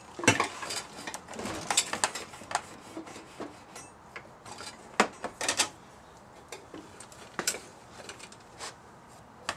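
Irregular metal clinks and knocks of tools being rummaged through in a metal bucket of parts, with the sharpest knocks about a quarter second in, near two seconds and about five seconds in.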